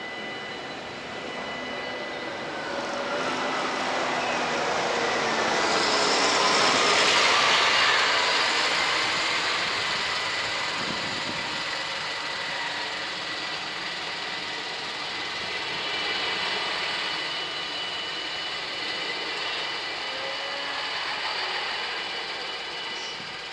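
Level-crossing warning bells ringing steadily while a large farm tractor's diesel engine passes close by, loudest about seven seconds in, its pitch shifting as it goes. Later a diesel railcar runs through the crossing, a smaller swell near the end.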